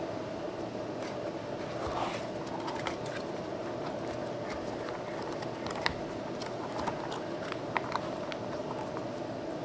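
Scattered light clicks and taps of packaging and parts being handled during an unboxing, over a steady background hum.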